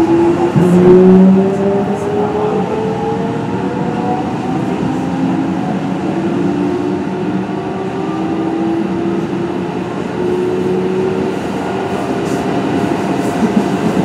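Kintetsu 1420 series electric train running, its Mitsubishi GTO-VVVF inverter whining in several tones that rise slowly in pitch as the train gathers speed, over steady wheel and rail rumble. The loudest moment is about a second in.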